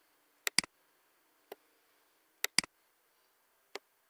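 Computer mouse clicking: a quick double click about half a second in, a single click, another double click about two and a half seconds in, and a last single click near the end.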